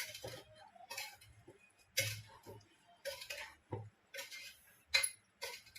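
Rhythmic scraping or scrubbing strokes, about one a second, each a short rasping hiss, typical of goat tripe being scraped or rubbed clean by hand.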